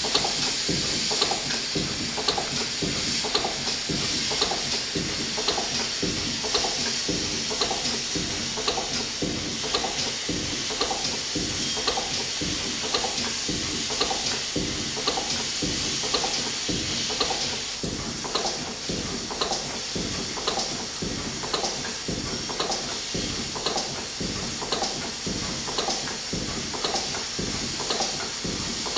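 1923 R. Wolf steam engine running under steam, its crank and valve gear turning with an even beat somewhat more than once a second over a steady steam hiss. The hiss drops about two-thirds of the way through.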